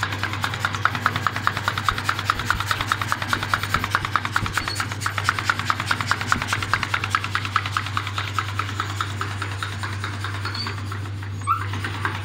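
Metal lathe running with a steady low hum and a fast, even rasping tick, roughly ten a second, that weakens over the last few seconds; one brief knock near the end.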